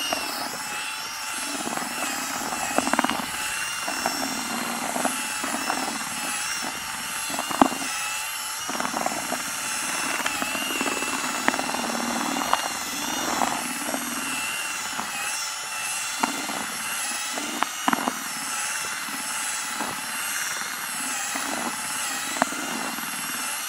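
Cordless drill running steadily with a wire paddle whisk, churning damp fishing groundbait in a plastic bucket, with a few sharp knocks along the way.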